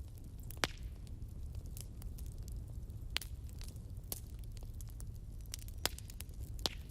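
Wood fire burning in a fireplace: irregular small crackles with four louder sharp pops spread through, over a steady low rumble.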